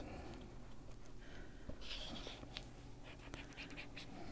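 Faint scratchy rubbing of a small ink blending tool working Distress Ink onto paper, with a few light clicks.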